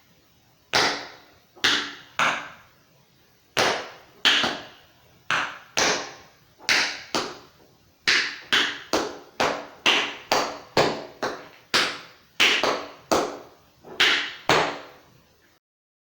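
Tap shoes striking a hard floor: about two dozen sharp, ringing metal taps in an uneven rhythm, some single and some in quick runs, as a tap dancer steps through a routine.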